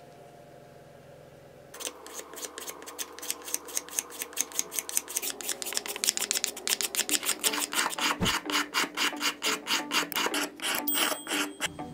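The sharp edge of a broken glass shard scraped back and forth along a wooden dowel, shaving it like a cabinet scraper. A quick run of rasping strokes, several a second, starts about two seconds in.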